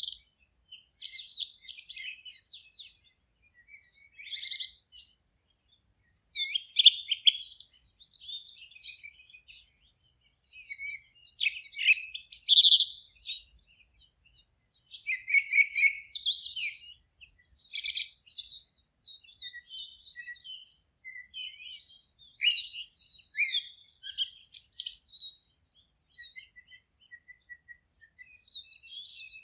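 Several songbirds singing, with short chirps, trills and whistled phrases overlapping and broken by brief pauses.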